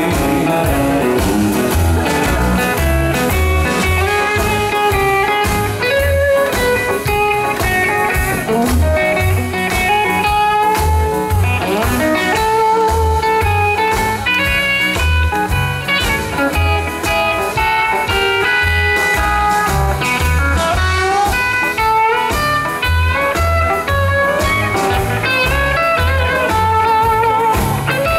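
Live rock'n'roll band playing an instrumental passage: electric guitar carrying the melody, with some bent notes, over upright bass, drums and piano keeping a steady beat.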